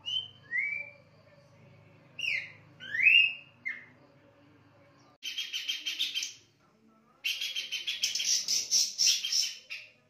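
Caged pelanduk semak babbler singing: short, clear whistled notes, some gliding up and some down, in the first few seconds. Two spells of fast, harsh chattering follow, the second longer and louder.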